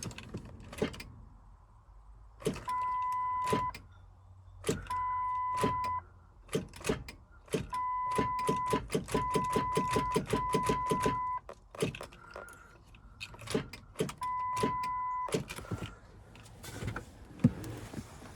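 Multimeter continuity beeper sounding six times, each beep about a second long at one steady pitch, as test probes click and scrape against metal while hunting for a good ground, with a quick run of taps in the middle.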